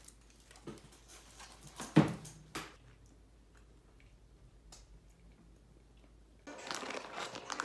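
Groceries and their packaging handled on a table: a few knocks and bumps, the sharpest about two seconds in, with quiet gaps between them. Near the end a steady background hiss comes in.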